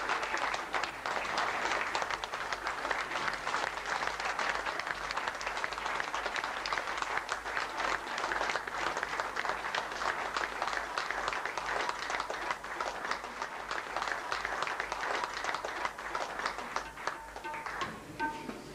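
Audience applauding, a dense patter of many hands clapping that thins out over the last few seconds.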